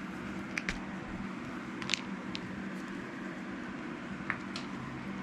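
Steady low background hum with a few small, sharp clicks and ticks of wire and small parts being handled; the clearest click comes about two seconds in.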